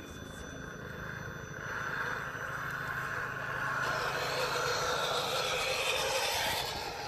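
Scale RC rock crawler's electric drivetrain running as the truck crawls over rock, getting louder from about two seconds in as it comes close and dropping away near the end.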